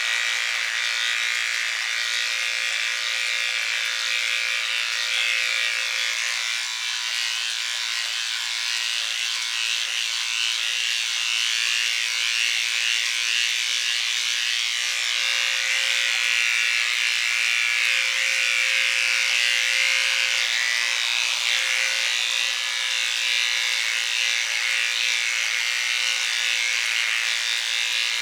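Electric hair clippers buzzing steadily while trimming a dog's coat.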